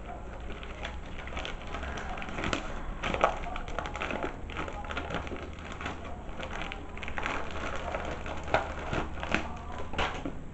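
Plastic packaging crinkling and rustling continuously as a vacuum-sealed book is worked out of a plastic mailer bag, with a couple of sharper crackles, about three seconds in and again past eight seconds.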